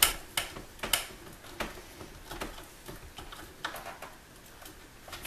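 Hand screwdriver driving a screw into a wooden mounting bracket, giving irregular sharp clicks and ticks as the screw is turned.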